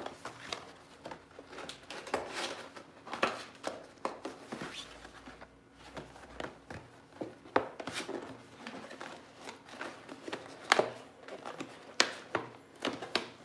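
Light blue paperboard box being folded into shape by hand: irregular creasing snaps and rustles of stiff card, with a few louder sharp snaps in the second half.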